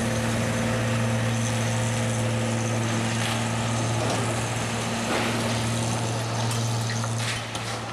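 Police water-cannon truck (TOMA) running its engine and water pump at steady high revs, a constant low hum, with the hiss of its water jet spraying.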